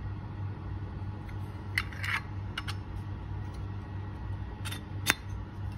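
Several short metallic clicks and clinks from a sterling silver Zippo lighter being handled, its lid and insert, with the loudest click near the end, over a steady low hum.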